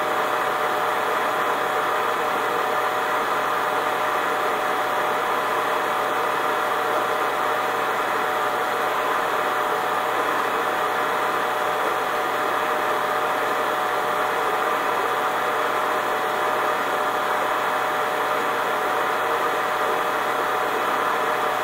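Steady machine hum with a hiss, unchanging in pitch and level throughout, with a few steady tones running through it.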